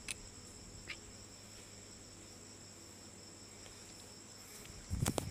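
Crickets chirring steadily, with a couple of light clicks in the first second and a few dull knocks near the end.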